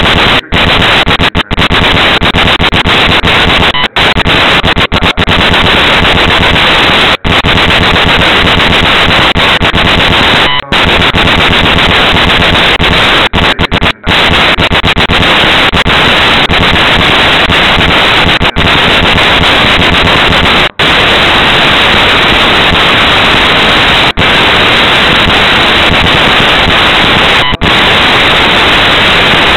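Loud, steady hiss of static from a low-quality recorder, with no words audible through it. Brief dropouts break it every few seconds.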